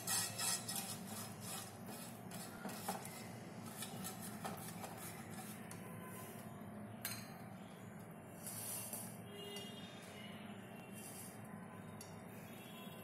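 Silicone pastry brush rubbing butter onto the ridged nonstick plates of an open electric sandwich maker: a quick run of light scratchy strokes over the first few seconds, then a low steady background.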